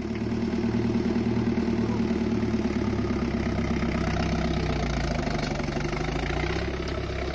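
Diesel engine of a Marksan BM-608 half-feed combine harvester running steadily.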